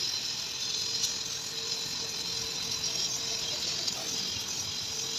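Electric arc from a welding rod melting the lead terminal post of a lead-acid car battery: a steady sizzling hiss with a faint steady hum underneath.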